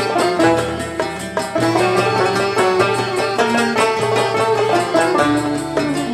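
Algerian chaabi ensemble playing: a mandole plucked in a quick run of notes with banjos, over keyboard and a steady hand-drum rhythm.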